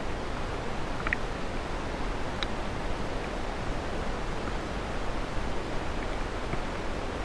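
A steady, even outdoor hiss with a few faint, short ticks scattered through it.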